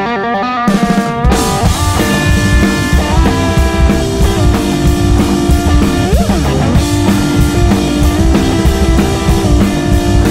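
Organ trio playing jazz-funk: Hammond B3 organ holding chords over electric guitar and a drum kit.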